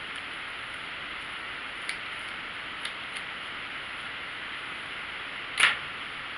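Steady hiss with a few faint ticks, then one loud, sharp plastic click about five and a half seconds in: a hair clip snapping shut on a section of hair.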